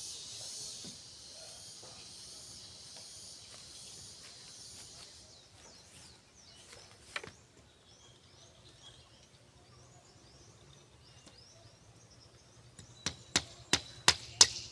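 Steady high buzzing of insects that fades about five seconds in, a single knock about seven seconds in, and near the end a run of sharp hammer strikes, about three a second.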